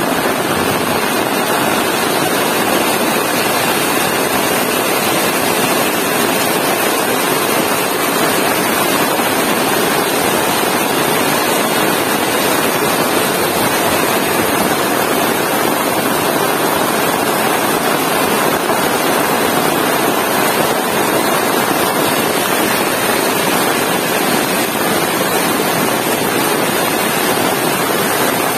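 Heavy rain pouring down: a loud, steady, dense hiss with no letup.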